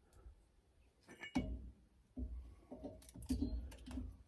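A few faint clicks and knocks, a cluster about a second in and more about three seconds in, from parts being handled while fitting the anti-sway bar bushings and brackets, over a low rumble.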